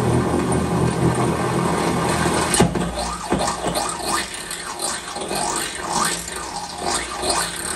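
Power drill running steadily as it enlarges a hole in the Honda Accord's sheet-metal trunk lid. About two and a half seconds in there is a sharp clack, followed by irregular squeaks and scrapes as the bit works in the metal.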